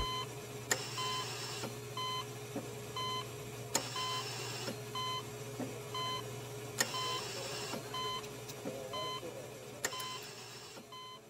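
Hospital patient monitor beeping steadily about once a second, over a low steady hum. About every three seconds a click is followed by a second-long hiss.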